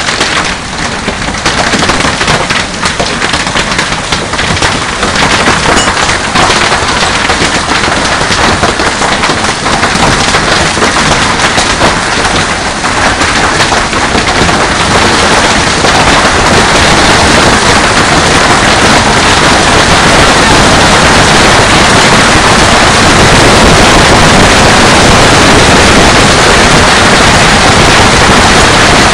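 Hailstones and heavy rain pelting down: a dense, loud clatter of countless small impacts over the hiss of rain, building up over the first half and then holding steady.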